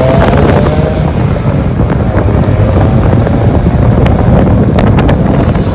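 Heavy wind buffeting on a microphone held out of a moving car's window, over the rumble of road and engine noise.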